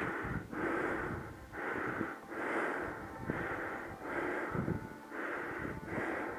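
A hiker's heavy breathing right at a head-mounted microphone, a rhythmic rasp of breaths in and out about once a second.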